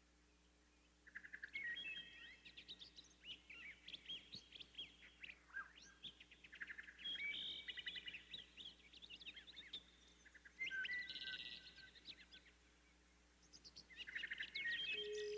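Small songbirds chirping and twittering in quick high trills, in spells of one to three seconds with short pauses between. A steady ringing tone starts right at the end.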